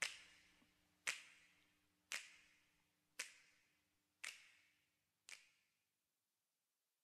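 Six sharp snapping clicks, about one a second, each with a short echoing tail and each fainter than the last, dying into silence about five and a half seconds in: the fading end of a music track.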